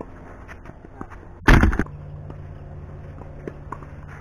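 A sudden loud rattling knock close to the microphone about a second and a half in, lasting about a third of a second. A few faint knocks of tennis balls being struck come before and after it.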